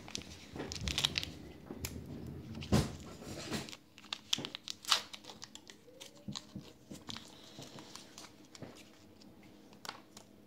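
Crinkling and tearing of the sterile paper-and-plastic packet of a Q-Cap vial adapter being peeled open by hand, busiest in the first few seconds, followed by sparser light plastic clicks and rustles as the adapter and syringe are handled.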